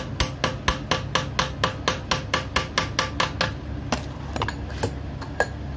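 A small hammer striking a steel knife-handle band clamped in a vise, bending its tab over. About four light, ringing metallic strikes a second for roughly three and a half seconds, then a few scattered taps.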